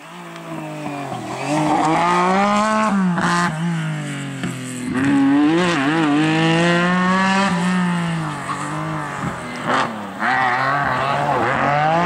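Rally car engine revving hard past the spectators, its pitch climbing and falling again and again as the driver shifts gears and lifts off through the corner.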